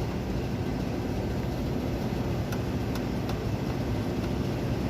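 Steady low rumble of background noise, with three faint light clicks between about halfway and two-thirds of the way through, likely from handling the old fan-motor capacitor and its wiring as it is taken out.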